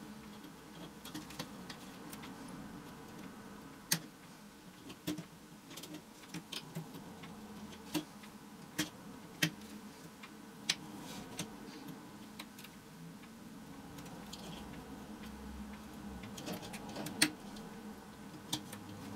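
Irregular sharp clicks and ticks of small pliers working chicken wire as its cut ends are bent over and crimped, with a few louder snaps about four seconds in and near the end. A faint steady hum runs underneath.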